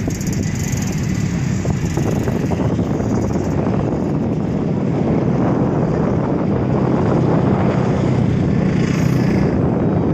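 An engine drones steadily, with wind rushing over the microphone.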